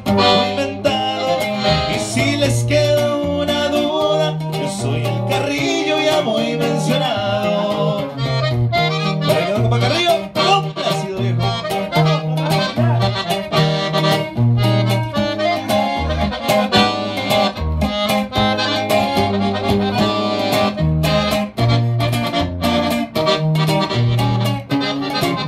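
Live band playing a corrido: an accordion carries the melody over strummed guitar, a walking bass line and steady drum hits, with little or no singing.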